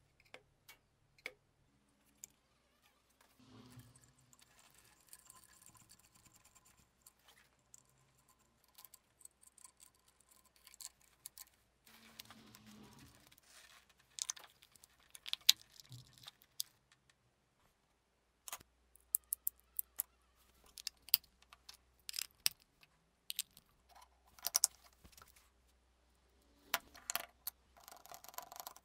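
Sparse light clicks and small metallic taps from hand-tool work on electrical parts, with a screwdriver driving screws into a switch panel near the end.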